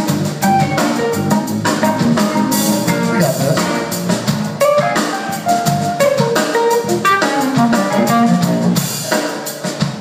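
A live band of acoustic-electric guitar, electric bass, keyboard and drum kit playing a rock song, with steady drum hits throughout. The playing stops near the end.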